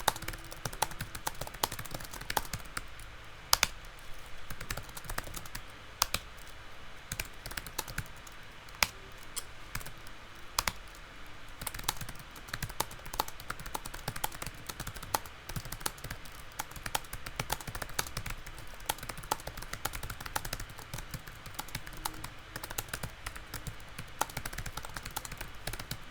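Computer keyboard typed on fast and continuously: a rapid, uneven stream of key clicks during a speed-typing test.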